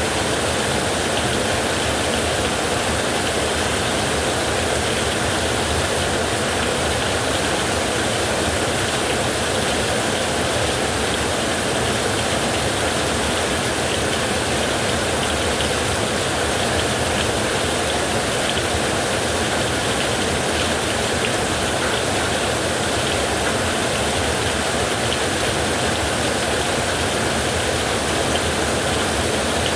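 Heavy rain falling steadily on a metal roof, a dense, even hiss with no letup.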